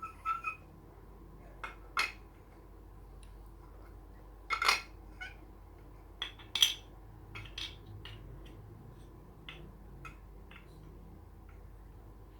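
Small plastic Lego pieces clicking and clattering as they are handled and set in place, in scattered taps with the loudest knocks about four and a half and six and a half seconds in.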